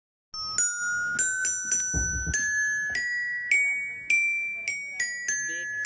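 A simple tinkling tune of bright, bell-like notes, about two a second, climbing step by step in pitch and then coming back down. A brief low rumble sounds about two seconds in.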